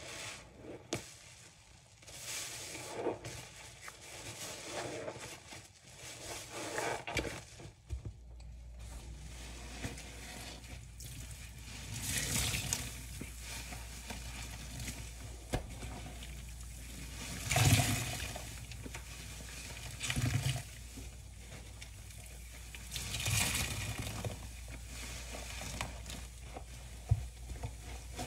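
Soapy bath sponges squeezed and wrung in rubber-gloved hands, in a run of separate wet squelches and sloshes as suds and water are pressed out and drip into a stainless steel sink. A faint steady low hum runs underneath from about eight seconds in.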